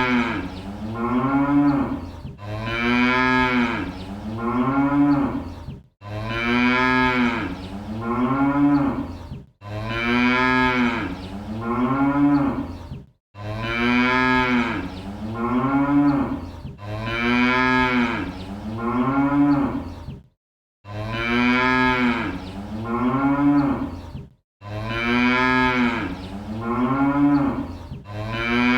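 Cattle mooing: a long moo that rises and falls in pitch, followed by two shorter moos. The same sequence repeats about every three and a half seconds, about eight times, with brief silences between some repeats.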